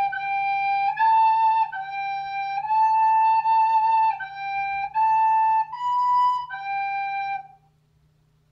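Recorder playing a slow, simple melody of separate held notes, roughly one a second, in a clear, pure tone, stopping near the end.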